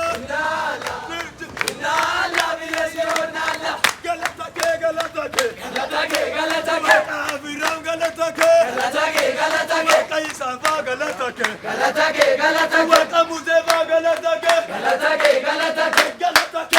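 A congregation singing and chanting together in Amharic, with many hand claps throughout.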